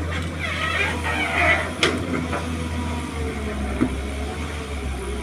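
Hydraulic excavator's diesel engine running steadily under load while the boom and bucket dig and dump soil, with a couple of sharp knocks about two and four seconds in.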